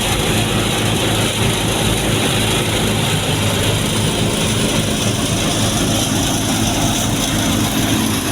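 Steady engine hum and road noise of a vehicle being driven.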